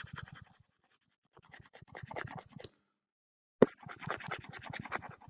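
Stylus scrubbing rapidly back and forth on a pen tablet to erase digital ink, in three scratchy bursts. A single sharp tap of the pen comes about three and a half seconds in.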